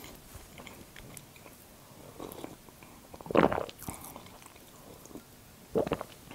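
A woman sipping tea from a mug: a loud sip about three and a half seconds in, and another short mouth sound just before the end.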